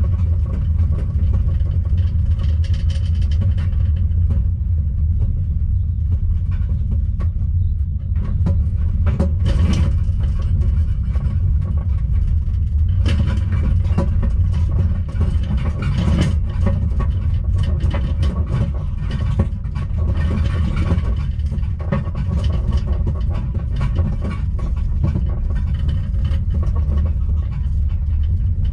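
Steady low road rumble of a caravan on tow, heard from inside its microwave, with scattered knocks and rattles.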